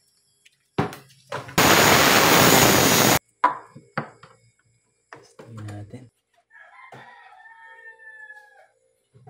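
A loud burst of hissing noise lasting about a second and a half, with a few knocks after it. Later a rooster crows, one long call that falls away at the end.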